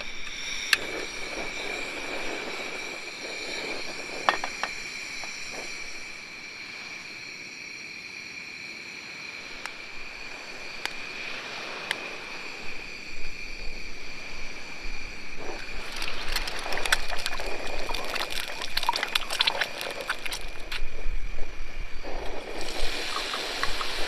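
Clicks and knocks as a gas canister is fitted to a portable camp stove, then hot oil crackling in a frying pan. Near the end, ground meat goes into the pan and sizzles. A steady high whine runs underneath.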